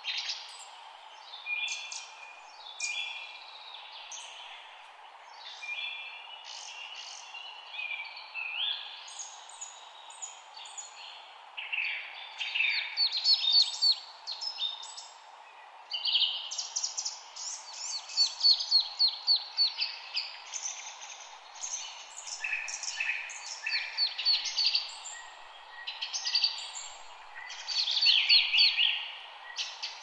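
Several songbirds chirping and singing over one another in short, rapid trilled phrases, which grow busier about halfway through, over a steady background hiss.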